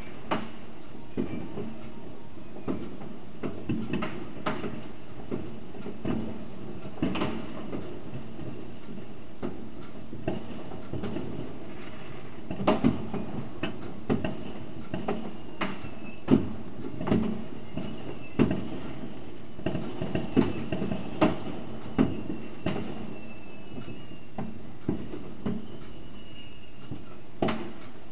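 Distant New Year's Eve fireworks and firecrackers: irregular sharp bangs and cracks, sometimes several in a second, over steady background noise. They grow thicker and louder in the second half.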